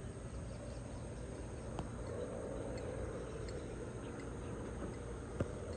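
Steady outdoor background noise, a low hum with a hiss over it, broken by two faint sharp clicks, one about two seconds in and one near the end.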